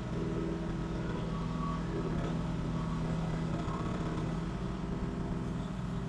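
Koop 192F single-cylinder diesel engine of a 1.2-ton mini excavator running steadily at a constant speed.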